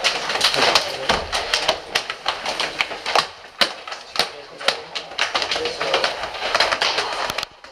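Team changing-room commotion: an irregular clatter of sharp clacks and knocks over indistinct voices, cutting off suddenly near the end.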